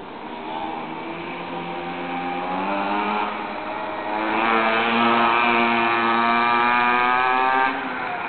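Mini moto's small two-stroke engine revving up under acceleration, easing for a moment about three seconds in, then held at high revs and loud until it drops away suddenly near the end.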